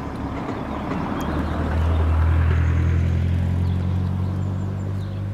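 A motor vehicle's engine, a steady low hum that swells about a second and a half in and holds, over background traffic noise.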